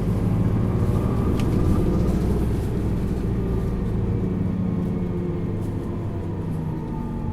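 Isuzu Erga LV290N1 city bus's four-cylinder diesel engine running as the bus drives, heard from inside the cabin. Its steady drone eases slightly lower in pitch and level near the end.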